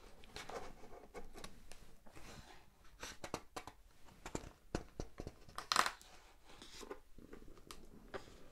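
Glossy pages of a large hardcover book being turned and smoothed by hand: paper rustling and crinkling with scattered light ticks, the loudest crinkle about six seconds in.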